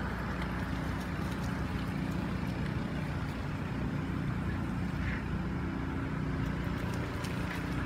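Steady low hum of a running motor-vehicle engine, with a few faint clicks over it.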